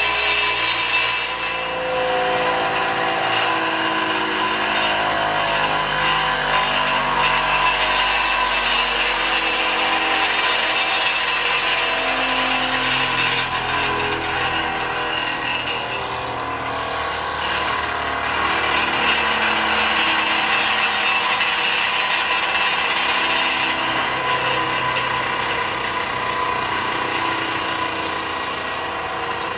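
Bench grinder running with a lawn mower blade held against its wheel to sharpen the edge: a steady grinding whine whose tone shifts every second or two as the blade is worked.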